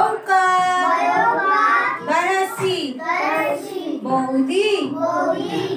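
Young children reciting Bengali words aloud in a sing-song chant, with a high drawn-out note near the start.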